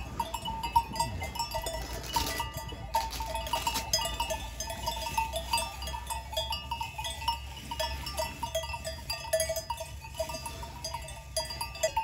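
Bells on a herd of grazing cows clanking over and over at an uneven pace, mostly on two pitches.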